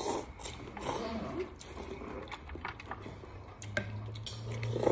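A man slurping rice noodles from a bowl of fish noodle soup and chewing them, with short slurps around the first second and again near the end.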